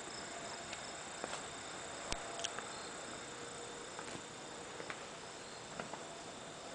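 Quiet room tone: a steady hiss with a faint high steady tone and a few faint, scattered clicks.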